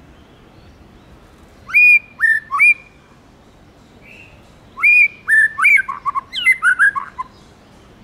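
White-rumped shama singing: a short phrase of three clear whistled notes about two seconds in, then a longer phrase of whistles running into quick, falling notes from about five to seven seconds.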